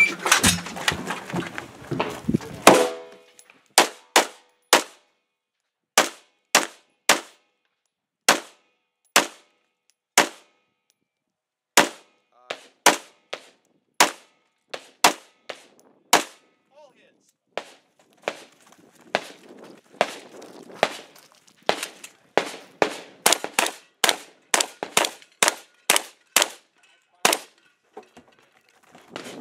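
A string of gunshots during a timed 3-gun competition stage, with dozens of shots fired singly and in quick pairs and short pauses between groups. The steel targets ring on hits.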